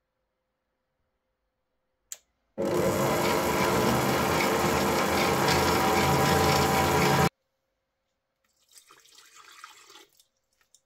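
Electric stand mixer motor running at one steady speed for about five seconds, starting and cutting off abruptly after a click. Near the end, water is poured from a glass jar into its stainless steel bowl, a faint trickle and splash.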